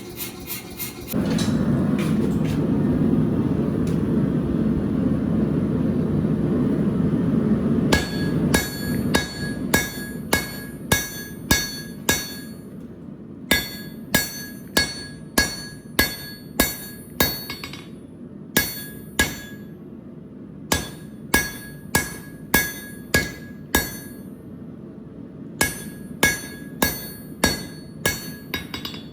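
Hand hammer striking hot steel on an anvil, a steady run of blows about every half second or so, each with a bright ring, in bursts broken by short pauses. For the first several seconds, before the hammering, there is a steady low rushing noise instead.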